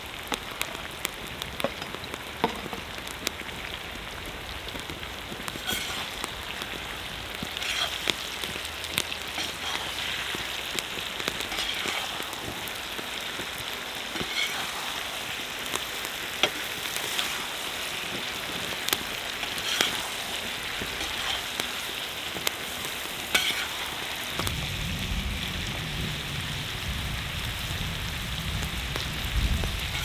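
Beef, fried potatoes, onion and tomatoes sizzling steadily in a sach, a wide metal pan over a campfire, with occasional sharp clicks of the slotted ladle stirring against the pan. A low rumble joins about 24 seconds in.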